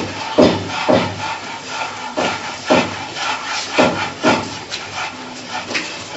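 Hands rubbing and rolling damp semolina against a tray in repeated sweeping strokes, a gritty scraping about once or twice a second: the semolina is being hand-rolled into the large grains of berkoukes.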